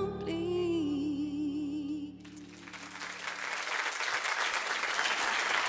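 A woman sings the closing note of a pop ballad with vibrato over a held low accompaniment chord; the voice ends about two seconds in, and audience applause then swells and fills the rest.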